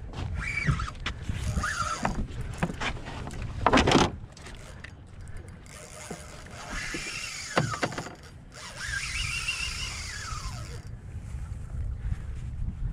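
Sounds of fighting a hooked snook on a spinning rod from a small skiff: water lapping the hull and wind rumbling on the microphone, with two sharp knocks about four and seven and a half seconds in. Short wavering high squeals come near the start and again about nine seconds in.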